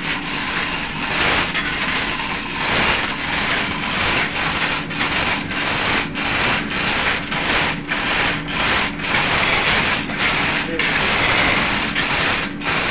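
Rapid, continuous ratcheting clatter of a chain hoist lifting the engine, pulsing about twice a second, over a steady machinery hum.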